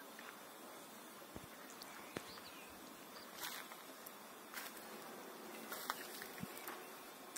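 Faint outdoor ambience: a low steady hiss with scattered soft clicks and scuffs and a few faint high chirps.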